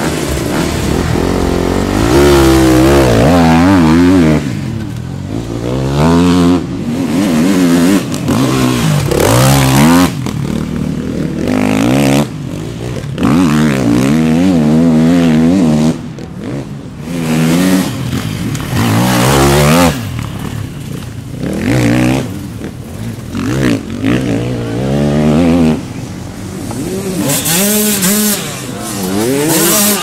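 Enduro motorcycle engines revving hard again and again, the pitch rising and falling with each burst of throttle and gear change. The sound changes abruptly every few seconds as one bike gives way to another.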